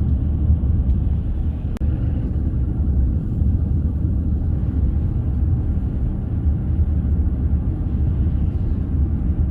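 A steady low rumble, with one brief click about two seconds in.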